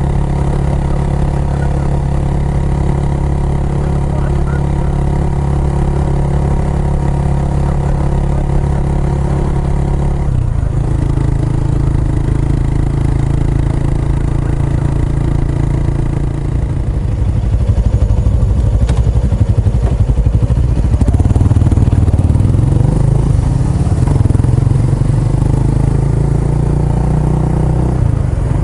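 Kawasaki Estrella's single-cylinder engine running through an aftermarket Yamato muffler. Its note is steady at first, shifts to a different pitch about ten seconds in, then grows louder and more uneven in the second half.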